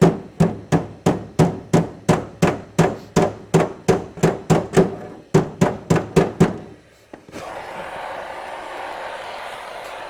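A hammer striking the Land Rover Series 3's aluminium rear tub panel about three times a second in a steady rhythm, knocking out dents in metal softened with heat. The blows stop at about six and a half seconds, and a steady rushing noise takes over for the last few seconds.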